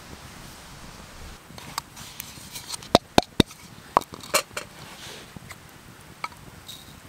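Small camp kitchen items being handled and set down on rock: light clicks and knocks of small metal tins, a wooden spoon and a wooden kuksa cup. Three sharp clicks come in quick succession about three seconds in, with a few more knocks after.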